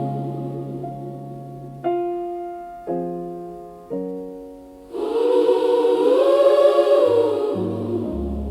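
Gospel music: three piano chords struck about a second apart and left to ring, then a choir comes in holding a full chord, with low bass notes near the end.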